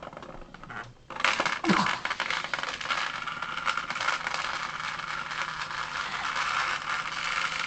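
Hexbug vibrating toy bug buzzing, a dense, steady rattle of fast ticks against a hard surface. It starts about a second in.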